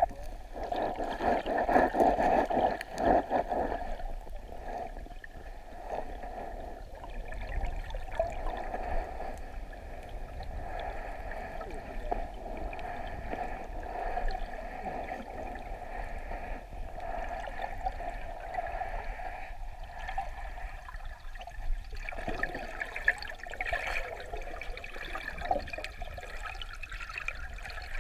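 River current rushing and gurgling, heard from a camera held under the water. It is a little louder in the first few seconds, then steadies.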